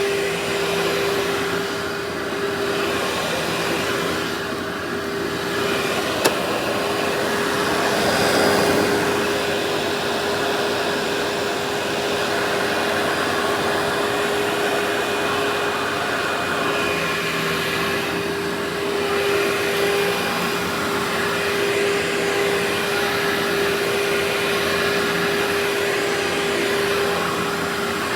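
Workhorse vacuum cleaner running steadily: a constant motor whine over a rush of airflow. There is a single sharp click about six seconds in, and the airflow swells briefly a couple of seconds later.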